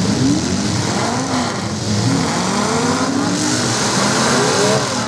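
Several demolition derby cars' engines revving at once, their pitches repeatedly sliding up and down.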